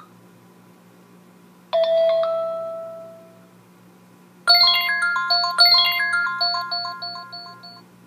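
iOS 7 ringtones previewed through the iPhone's speaker. A short chime phrase starts about two seconds in and fades out over a second and a half. A second tone, a quicker run of repeated bell-like notes, starts about halfway through and fades toward the end.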